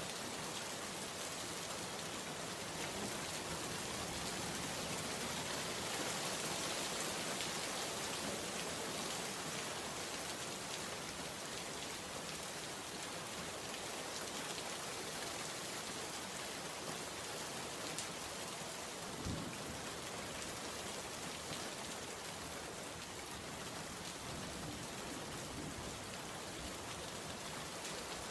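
Heavy rain falling steadily on leaves and a wet road, an even hiss of countless drops that never lets up. About two-thirds of the way through there is one soft low thump.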